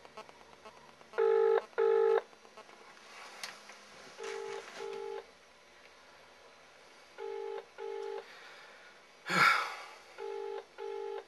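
Australian double-ring ringback tone played through a BlackBerry mobile phone's speaker: four double rings, about three seconds apart, while an outgoing call rings unanswered. The first double ring is the loudest, and a brief loud burst of noise comes about nine seconds in.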